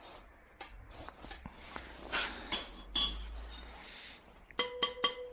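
Wire spokes of a Kawasaki KDX220 dirt bike wheel struck with a wrench to check their tension by ear. There are scattered metal clinks, then near the end a quick run of taps, each spoke ringing with a clear pitched tone. A clear ring is the sign of a properly tensioned spoke.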